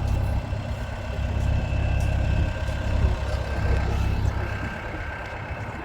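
Heavy machine's engine running steadily with a deep rumble, a thin steady whine and a few light knocks above it.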